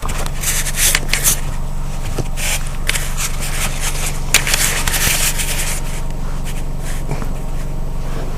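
Irregular scraping, rustling and clicking of hand work around a car's steering shaft and its rubber firewall seal, over a steady low hum.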